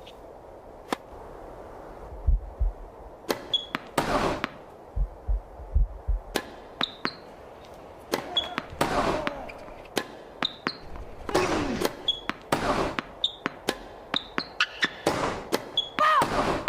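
Tennis sound effects: a quick run of sharp tennis ball hits and bounces, with short high squeaks and several brief cries. Low thuds come about two seconds in and again around five to six seconds.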